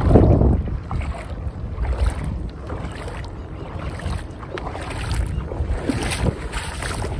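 Wind buffeting the microphone in a low rumble, strongest right at the start, with seawater sloshing now and then.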